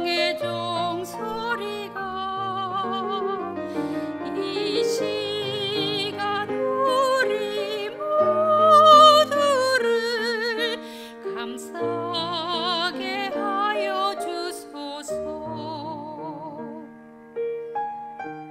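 A soprano singing a slow sacred song with wide vibrato, accompanied by piano. The voice drops out near the end, leaving the piano playing on.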